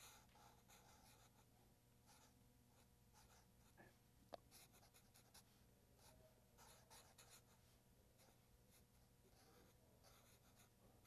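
Faint scratching of a felt-tip marker drawing on a white surface, in short irregular strokes, with one sharper tick about four seconds in.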